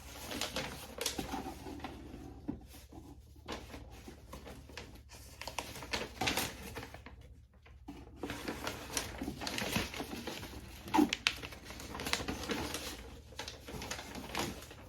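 Rustling and light clicks and taps of packaging and a paper product card being handled, in irregular bursts with a couple of short pauses.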